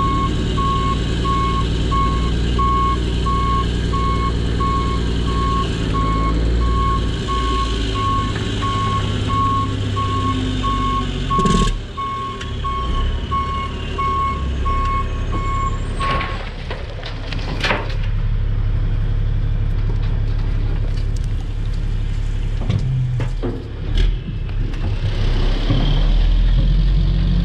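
Diesel dump truck backing up, its reverse alarm beeping at a steady even rate over the engine's low running. The beeping stops a little over halfway through, and a few sharp knocks follow while the engine keeps running.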